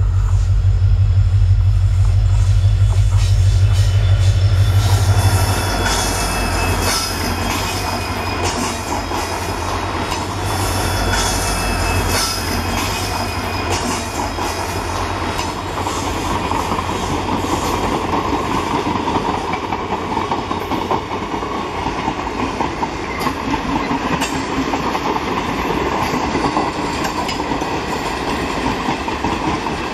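Two WDP-4D (EMD GT46PAC) diesel-electric locomotives, each with a 16-cylinder two-stroke EMD 710 engine, pass close with a loud low engine rumble that falls away about five seconds in. The passenger coaches then roll by with a steady clickety-clack of wheels over the rail joints and faint high wheel squeal.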